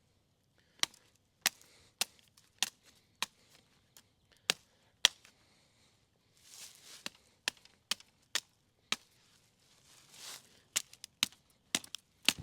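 Old Hickory high-carbon-steel machete chopping into a sapling: about twenty sharp blows in three runs, with the last run faster. There is brief rustling in the two pauses.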